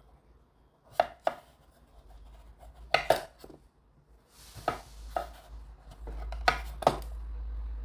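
Chef's knife cutting through a kabocha squash on an end-grain wooden cutting board. The blade knocks sharply on the board in pairs, four times about every two seconds.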